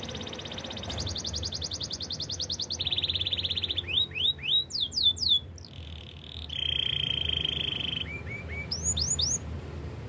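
Domestic canary singing a varied song: fast high trills, then a lower rolling trill, a run of quick falling whistles, a held rolling note, and a few more falling whistles near the end.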